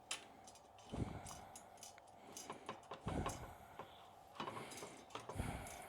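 Faint, scattered metallic clicks and knocks, about half a dozen in all, from bolts and bike-rack parts being handled and fitted.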